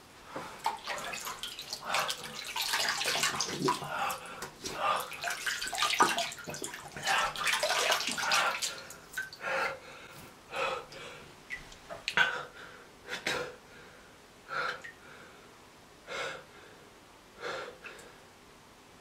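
A man retching and vomiting, with liquid splattering, for about the first nine seconds, then heavy ragged breaths about every second and a half as he recovers.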